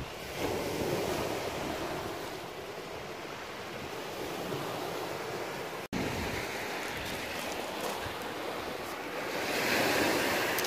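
Waves washing on a shingle beach, with wind on the microphone. The sound drops out for an instant just before halfway at an edit, and the surf swells louder near the end.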